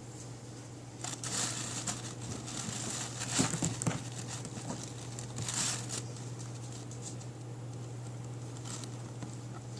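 A pet hiccuping: a few short, sharp hiccups a couple of seconds apart, the loudest about three and a half seconds in, amid rustling as the animal shifts about.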